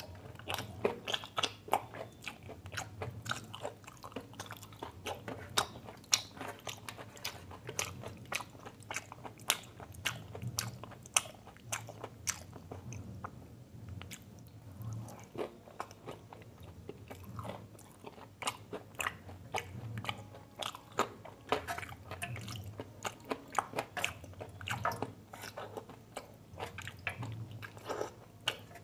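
A person chewing and eating close to the microphone, with many quick, irregular clicks and smacks of the mouth. There is a quieter lull about halfway through.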